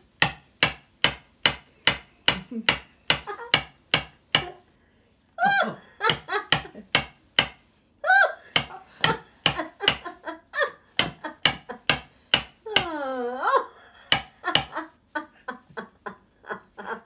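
Hammer tapping steadily, about three strikes a second, on a tool held against the cork of a wine bottle, driving the cork down into the neck for want of a corkscrew. Bursts of laughter come between the strikes.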